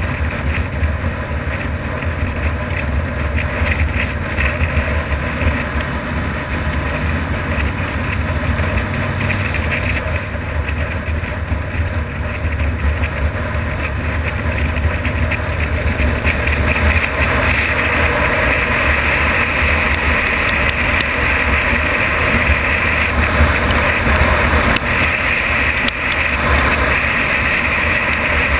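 Harley-Davidson FXR V-twin engine running as the motorcycle rides along, with wind and road noise. The sound grows louder about two-thirds of the way through.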